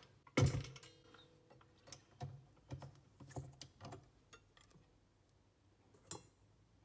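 Wire whisk attachment of a KitchenAid stand mixer handled against its glass bowl. A thump with a short ring comes about half a second in, followed by a run of light metallic clicks and taps and one more near the end.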